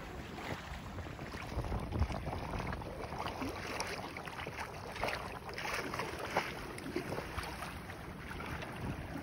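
Water rushing and splashing against the hull of a small sailboat under way in choppy water, with irregular wave slaps over a low rumble of wind on the microphone.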